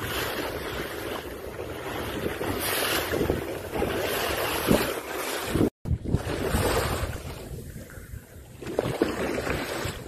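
Wind buffeting the microphone over the wash of open sea water alongside a boat, with a brief dropout a little past halfway.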